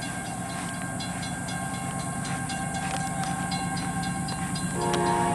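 CSX intermodal train led by a GE AC6000CW diesel locomotive coming through: a steady rumble with faint rail clicks. Near the end the locomotive's air horn starts as a chord of several steady notes.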